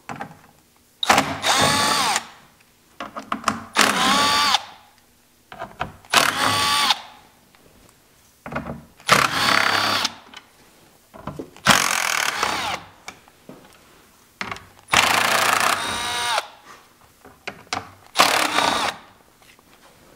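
Cordless driver with a T25 Torx bit backing screws out of plastic threaded inserts, one screw after another. It gives seven short bursts of motor whine, each about a second long, rising in pitch as the motor spins up, with brief pauses between screws.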